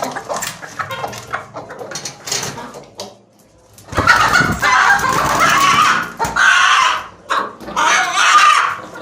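Hen making a run of short clucks, then, after a brief pause, loud bark-like calls in several bursts of about a second each, starting about four seconds in.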